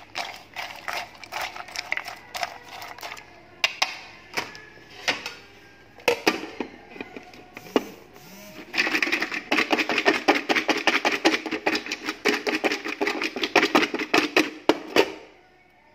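Crispy fried pork cracklings with kumquat halves being shaken in a container, a dense rattling clatter of hard pieces knocking against each other and the container walls. About nine seconds in the shaking becomes harder, and the clatter gets louder and denser, then it stops just before the end.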